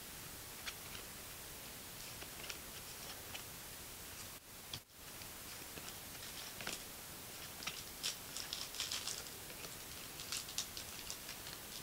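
A stack of 2011 Panini Golden Age trading cards being flipped through by hand, card after card slid off the front of the stack, making faint papery clicks and rustles over a steady hiss. The clicks come more often in the second half.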